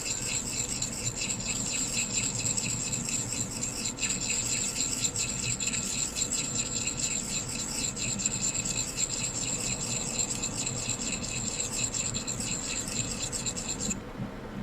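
Small handheld sharpening stone scraping against the steel blade of a Schrade axe in rapid repeated strokes, wetted with a little water, grinding a nick out of the edge. The scraping stops suddenly near the end.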